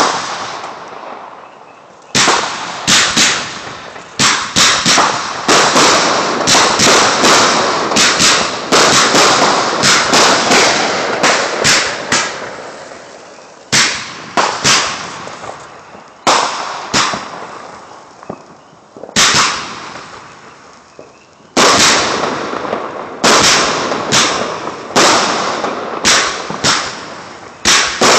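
Aerial fireworks display: shells bursting in sharp, irregular bangs, each fading away after it. They come in a dense run of volleys for the first dozen seconds, then single bangs a couple of seconds apart, then another quick run near the end.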